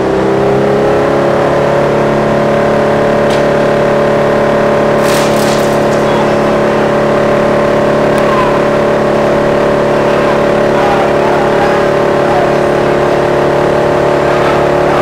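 Drum wood chipper running at full speed: a steady, loud machine hum with several even tones, its pitch rising briefly and levelling off just after the start.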